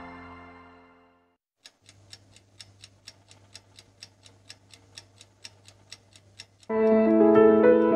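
Soft ambient music fades out, then a clock ticks steadily, about four ticks a second, over a low hum. Piano music comes in near the end.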